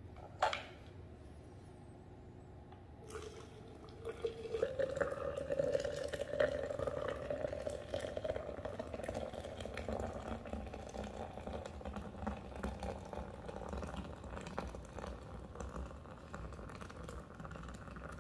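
Hot water poured from an electric kettle into a glass French press of coffee grounds: a steady splashing fill that rises a little in pitch as the press fills. A short clink about half a second in.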